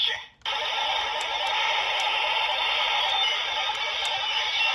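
Gashacon Key Slasher toy sword playing its finisher sound effect through its small built-in speaker: a steady, noisy, hiss-like electronic effect that starts after a brief gap about half a second in.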